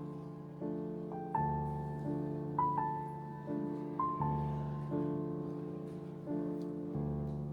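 Background music: slow, gentle piano, with chords struck about every second and a half and left to fade under a simple melody.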